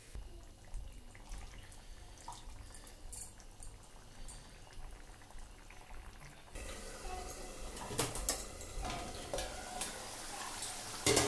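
Chicken liver curry simmering in a kadai on a gas stove with a faint sizzle, and a few light metal clinks in the second half as a steel lid is set over the pan.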